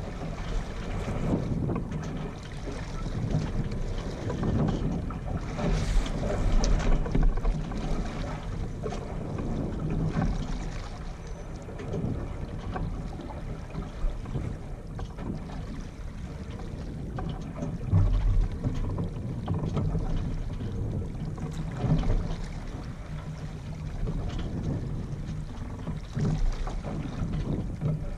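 Wind buffeting the microphone in uneven gusts, the low rumble swelling several times, over water washing along the hull of a Yamaha 24 sailboat sailing slowly in light air.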